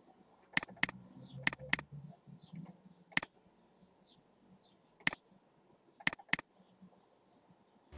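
Computer mouse clicking: three double-clicks and two single clicks, over a faint low hum.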